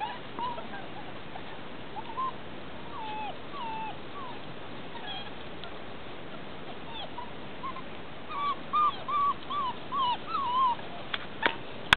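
Six-week-old Belgian Malinois puppies whimpering: short whines that bend up and down in pitch, scattered at first and coming thick and fast from about eight seconds in. Two sharp clicks near the end.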